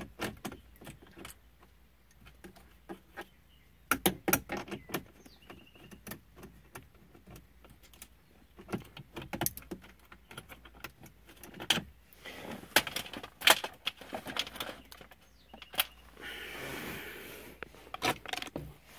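Ratchet with an extension and 7 mm socket clicking in short runs as a screw is backed out of plastic dash trim. A brief rustling scrape comes near the end.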